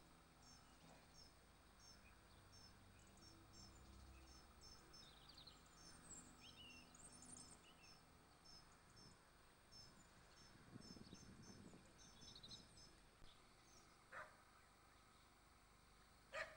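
Quiet outdoor ambience with faint birdsong: a small bird repeats short, high chirps a few times a second, with a few other brief calls around it. Two short clicks come near the end.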